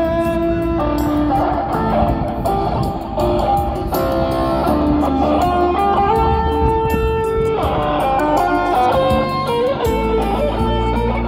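Electric guitar played live through a PA speaker: a lead melody of held, sustaining notes that change pitch every second or so.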